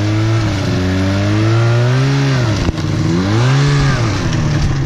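Polaris snowmobile engine running loud as the sled rides up close, its pitch climbing under throttle, dropping sharply about two and a half seconds in as the throttle eases, then climbing again and easing off near the end.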